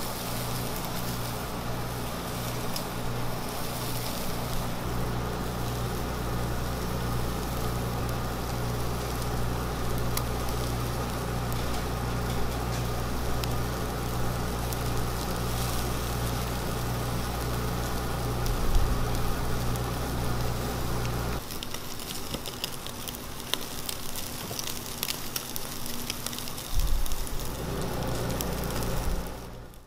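Spicy marinated webfoot octopus, then chicken, sizzling and crackling on a wire grill over hot charcoal, over a steady low hum. About two-thirds of the way through, the hum drops away and sharper crackling pops carry on, with a couple of louder knocks.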